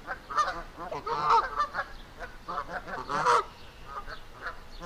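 Canada geese honking, a quick series of short calls, with louder honks about a second in and about three seconds in.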